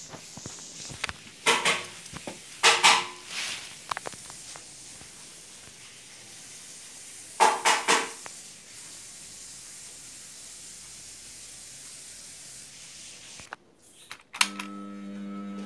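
Handling clatter and knocks on a Pegasus flatlock industrial sewing machine, with loud bursts about a second and a half, three and seven and a half seconds in. Near the end the machine's motor is switched on at its start button and a steady hum begins.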